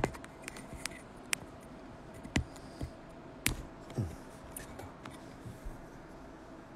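Handling noise of a phone held close to its microphone: a few scattered light knocks and clicks in the first five seconds, some with a short dull thud, over a faint steady room hum.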